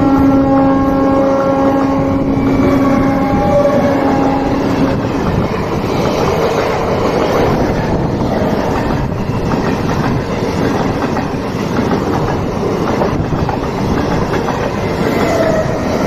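Indian Railways train passing: a long horn blast ends about five seconds in, then the steady rumble and wheel clatter of the train running on the rails.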